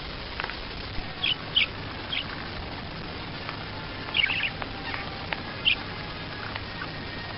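A small bird chirping in short, high calls, a few single chirps and then a quick cluster about four seconds in, over a steady hiss.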